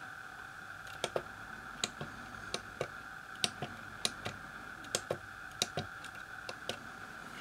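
Keys on the keypad of an Elektronika MK-161 programmable calculator being pressed one after another as a word is typed in: a run of irregular clicks, some in quick pairs, starting about a second in.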